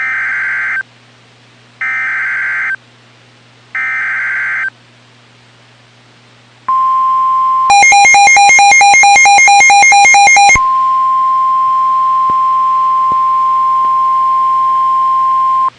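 Emergency Alert System activation on NOAA Weather Radio: three one-second bursts of the SAME digital header, a raspy data screech, a second apart, announcing a flash flood warning. After a short pause comes the steady 1050 Hz weather radio alert tone. About a second into the tone, a loud, rapid electronic beeping alternating between two pitches joins it for about three seconds, then the tone carries on alone.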